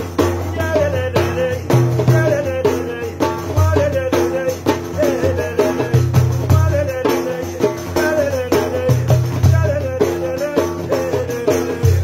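Large frame drum with jingles (def) struck by hand in a steady rhythm, its jingles shaking on each stroke, over music with a wavering, repeating melody and a steady bass.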